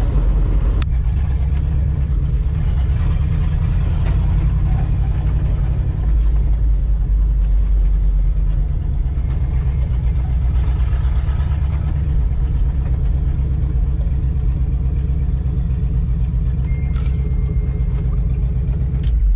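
1989 Ford F250's 5.8-litre V8 running as the truck drives along a gravel road, heard from inside the cab as a steady low rumble with road noise. The truck is running well on its newly replaced in-tank fuel pump.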